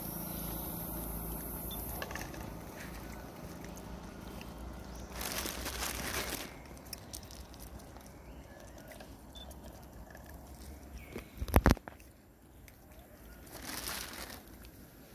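Long-tailed macaques eating peanuts, with faint crunching and small rustles. A low rumble fades out after about six seconds, and a brief loud thump comes about three-quarters of the way through.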